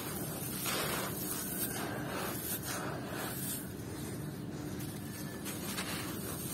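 Hands crushing crumbly moulded sand-and-gravel shapes. Gritty grains pour and trickle through the fingers in several short rushes.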